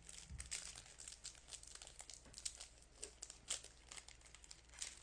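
Trading card pack wrappers and cards being handled: faint, irregular crinkling and rustling.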